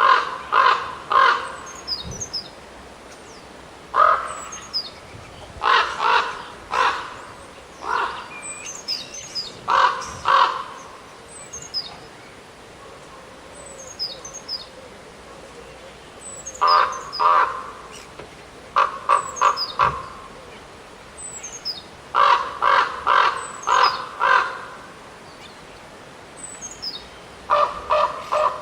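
Corvids calling in repeated bouts of two to four harsh caws, a pause of a few seconds between bouts. Between them a small bird gives short, high chirps.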